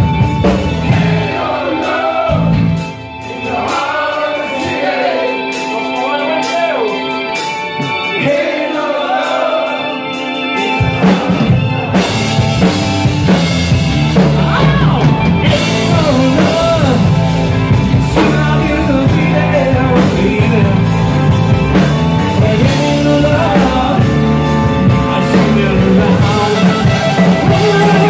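Live rock band playing: a singer's voice over electric guitar, bass and drums. The bass and drums drop out for a quieter stretch near the start, and the full band comes back in about eleven seconds in.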